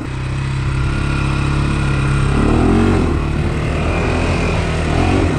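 Honda 400X quad's single-cylinder engine running on a trail ride. Its pitch rises and falls briefly about two and a half seconds in and again near the end, as the throttle is worked.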